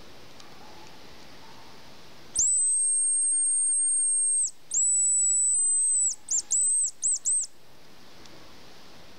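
Hazel grouse decoy whistle blown to imitate a male hazel grouse's song: two long, very high, thin whistled notes, then a quick run of short notes.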